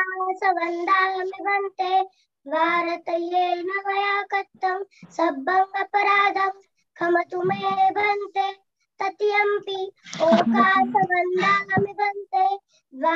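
A young girl chanting Pali devotional verses in short sung phrases held on nearly one note, with brief pauses between them. There is a short rush of noise about ten seconds in.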